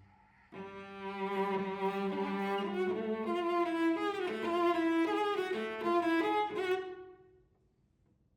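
Solo cello bowing a phrase in which a moving upper line sounds over a held lower note. It enters about half a second in and dies away near the end.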